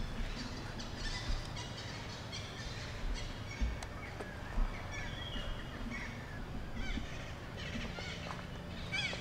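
Short, high animal chirps and squeaks, many in a row and scattered irregularly, over a steady outdoor background with a few soft low thumps.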